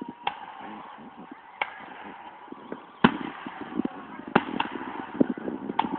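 Fireworks going off: a scattered series of sharp bangs, about six in all, the loudest about three seconds in.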